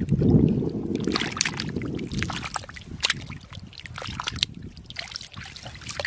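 Hands squelching and sloshing through thick, wet mud, with many short irregular wet smacks and gurgles, loudest in the first couple of seconds and easing off after.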